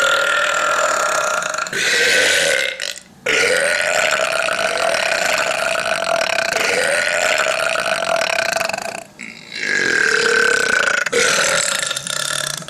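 A man belching loudly: a string of long, drawn-out belches, each holding a fairly steady pitch, the longest lasting about six seconds, with short breaks in between.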